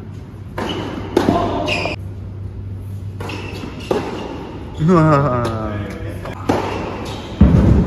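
Tennis rally in a large indoor hall: a ball struck back and forth by rackets, sharp hits every second or so, with a voice calling out about five seconds in.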